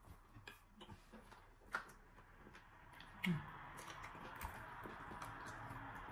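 Close-miked eating sounds of a person chewing eba with soup by hand: scattered small mouth clicks and smacks. A short low vocal sound comes about three seconds in, and a faint steady hiss sits underneath from then on.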